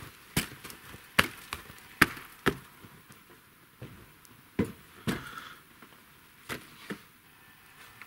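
Boots stamping and knocking: about nine sharp knocks at irregular spacing, the loudest about one and two seconds in.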